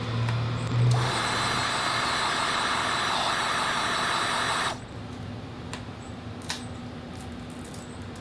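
Heat gun blowing hot air with a steady hiss, which cuts off suddenly just under five seconds in. A few faint clicks follow as the sticker is peeled off the motorcycle tank.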